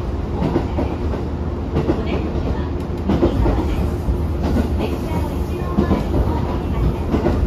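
Diesel railcar heard from inside the passenger cabin while running: a steady low rumble of engine and wheels, with irregular clicks and knocks as the wheels pass over the track.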